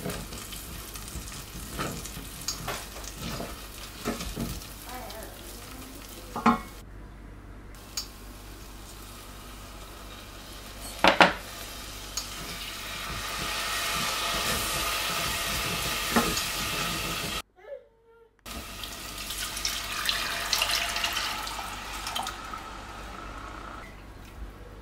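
Wooden spoon stirring and scraping paste frying in oil in a stainless steel pot, with scattered clicks and one loud knock about eleven seconds in. Then liquid is poured into the hot pot with a long sizzling hiss, running again after a brief break, as the soup broth goes in.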